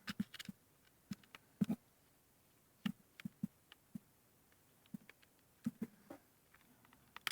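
Scattered light clicks and taps of small hard objects being handled on a desk, irregular and about a dozen or more in all, the way plastic razor parts and a screwdriver sound when picked up and set down.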